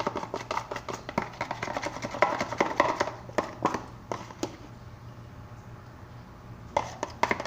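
A spoon beating a slime mix of white glue and boric acid water in a bowl, with fast clicking taps against the container. The taps stop a little past halfway and start again near the end.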